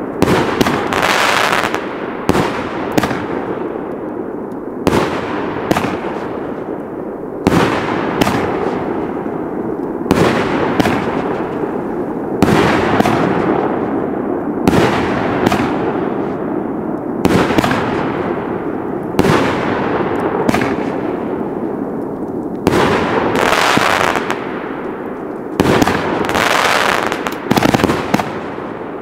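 A firework cake (battery) firing its shots one after another: a sharp report every two to three seconds, each trailing off into a rumbling tail of aerial bursts.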